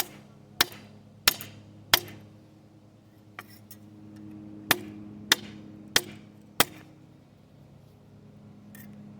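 Hammer blows striking metal during forging: two runs of four sharp strikes, each a little over half a second apart, with a pause between the runs.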